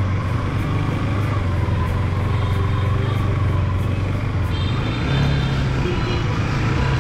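Honda CBR150R's single-cylinder four-stroke engine running as the bike rides along at low speed. The engine note rises a little about five seconds in.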